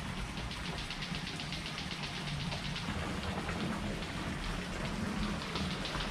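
Steady outdoor hiss, rain-like, with a fast, even, high-pitched pulsing through the first half that fades out later.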